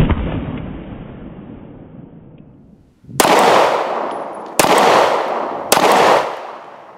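Detonics Pocket 9, a straight-blowback 9mm pistol, being fired: one shot at the very start, duller, with its echo dying away over a couple of seconds, then three sharper shots a little over a second apart in the second half.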